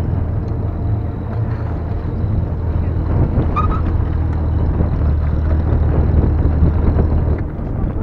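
An engine running steadily, a low drone under a noisy rushing wash, which strengthens about five seconds in and eases off shortly before the end.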